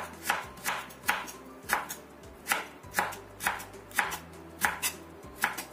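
Kitchen knife slicing a carrot into matchstick strips on a bamboo cutting board: a steady run of crisp chops, about two to three a second, each cut ending in a knock of the blade on the board.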